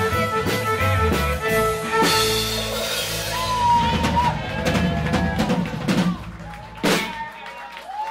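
Live rock band with fiddle and drum kit playing the last held notes of a song, ending with a cymbal crash about two seconds in. Loose drum hits and cymbal ringing follow, with shouts and cheers from the crowd, and a last loud drum hit near the end.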